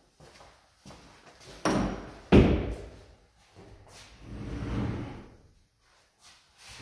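Interior closet doors being worked: a short scrape, then a sharp bang of a door shutting about two and a half seconds in, and a longer rumble of a door moving around four to five seconds in.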